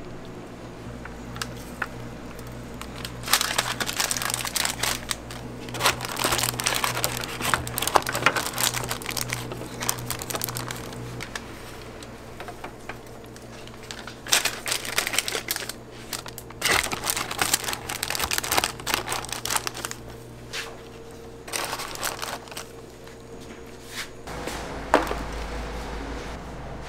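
Paper burger wrapper crinkling in repeated bouts as cheeseburgers are folded into it by hand, over a steady low hum.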